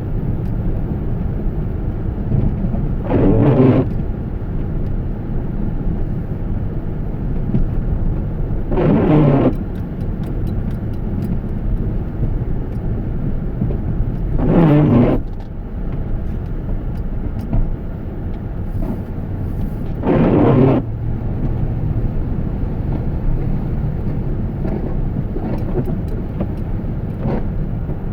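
A car driving, giving a steady low rumble. Four short louder sweeps break through it at even intervals of about five to six seconds.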